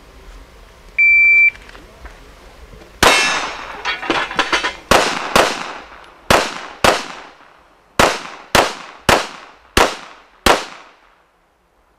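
A shot timer's start beep, one steady tone about half a second long, about a second in. Then, from about three seconds in, a string of about a dozen 9 mm pistol shots from an S&W M&P9 Pro, several in quick pairs, with steel target plates ringing from the hits.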